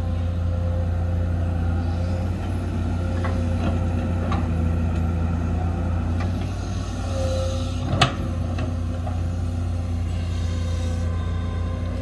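Heavy construction machinery's diesel engine running steadily at a site, with a few light knocks and one sharp metallic clank about eight seconds in.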